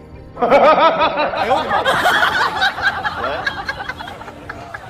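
Several voices laughing in rapid repeated bursts over background music, starting about half a second in and fading toward the end.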